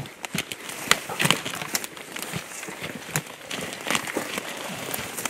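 Footsteps through dry leaves and fallen brush, with twigs snapping and crackling and leaves rustling in short, irregular bursts.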